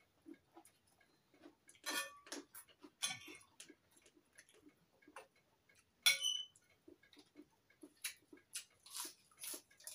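Metal knife and fork clicking and scraping on a china plate in small irregular clicks, with soft chewing sounds between them. One sharp, ringing clink comes about six seconds in.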